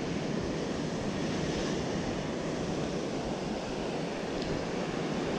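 Ocean surf breaking and churning against rocks at the foot of a sea cliff, a steady rushing wash, with wind noise on the microphone.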